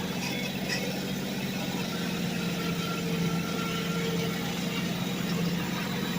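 Bobcat MT100 mini track loader's engine running at a steady pitch.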